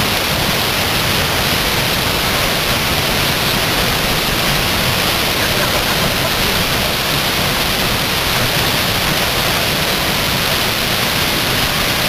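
Waterfall swollen by recent rains, a loud, steady rush of falling water.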